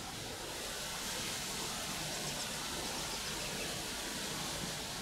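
Steady hissing outdoor ambience, even and unbroken throughout, with no distinct events.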